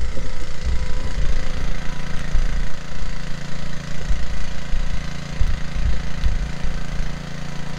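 Small gasoline engine of an irrigation water pump running steadily, with an uneven low rumble over it.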